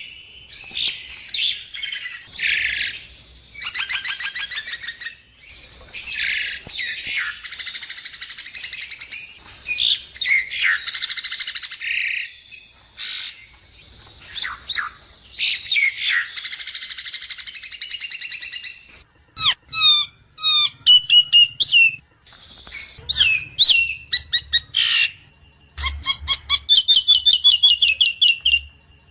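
Javan myna (jalak kebo) song: dense, harsh chattering and squawky phrases, then from about two-thirds of the way in, sharp clear down-slurred whistled notes and a rapid run of repeated notes near the end.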